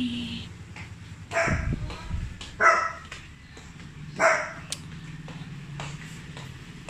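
A dog barking three times, short single barks about a second or so apart.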